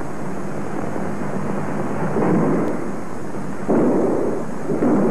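Heavy, steady hiss and rumble of an old 1950s film soundtrack, dull and cut off in the highs, with a few muffled swells rising out of it.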